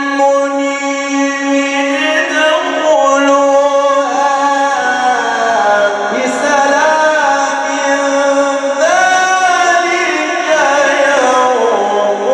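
A male Quran reciter chanting in the melodic mujawwad style: long, ornamented held notes that slide between pitches, stepping down to a lower note about five seconds in and again near the end.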